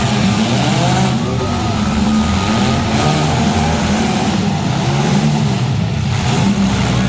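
Several compact demolition-derby car engines revving, their pitch rising and falling as the cars accelerate and back off.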